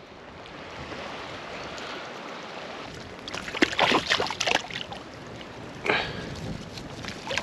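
Stream water flowing steadily, with a few brief louder sounds about three to four seconds in and again near six seconds.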